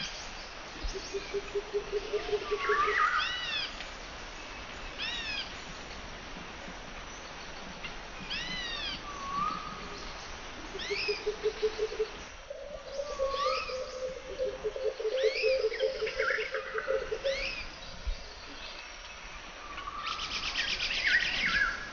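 Wild birds singing: clear chirps that rise and fall, repeated every second or two, with a low trill held for a few seconds at a time, several times over, and a fast high rattle near the end.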